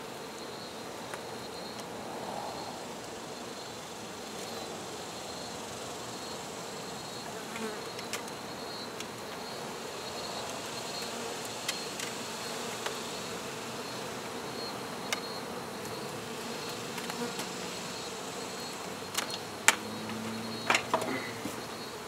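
Many honey bees buzzing steadily around a colony opened up in a house eave, stirred up by the comb being cut out. A few sharp clicks come near the end.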